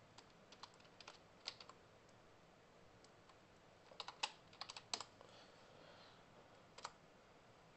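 Computer keyboard keystrokes in scattered taps, with two quick runs of typing about four to five seconds in and a last pair of taps near the end.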